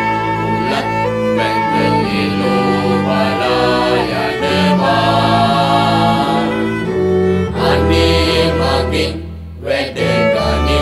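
String ensemble of violins, viola, cello and double bass playing slow, sustained chords in a classical arrangement. The sound dips briefly about nine and a half seconds in, then the strings come back in with a strong low bass note.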